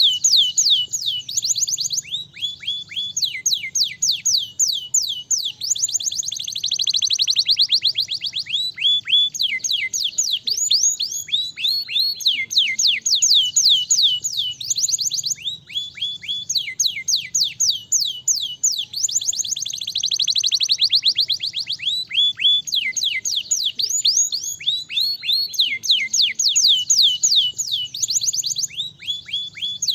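Domestic canary singing a long, fast song of trills: runs of quick falling whistled notes, several a second, switching from one run to the next every second or two.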